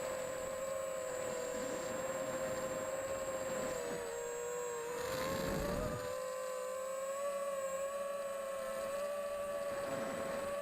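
E-Turbine 250 v2 FPV racing quadcopter's brushless motors whining in flight, the pitch dipping and rising with the throttle. A short rush of wind noise comes about halfway through.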